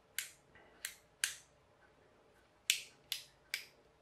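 Small plastic slide switches from a hair dryer clicking as they are pushed by hand: three sharp clicks in the first second and a half, then three more about a second later.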